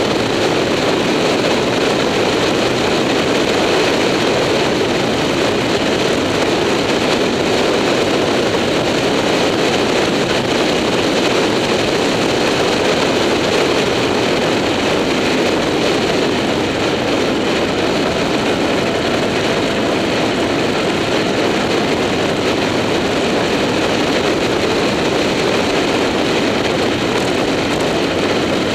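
Motorcycle riding steadily at road speed: a constant rush of wind on the microphone mixed with the bike's engine, with no gear changes or sudden sounds.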